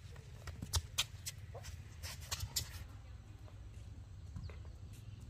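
Sharp taps and scuffs of a small child's shoes on concrete, in quick clusters about a second in and again about two seconds in, over a steady low rumble.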